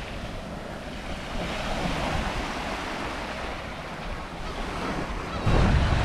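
Small waves washing onto a sand-and-pebble beach, with wind rumbling on the microphone, heaviest near the end.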